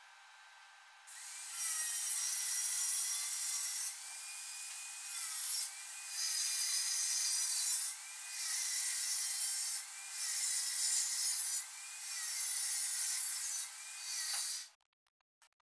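Handheld angle grinder working on square steel pipe, its disc grinding the metal. The grinding starts about a second in, eases and swells back about every two seconds as the disc is pressed on and lifted, and stops suddenly near the end.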